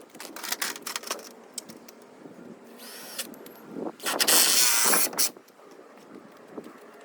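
Power drill running in two short bursts, a brief one about three seconds in and a louder, longer one of just over a second about four seconds in, with a few knocks of handling before them.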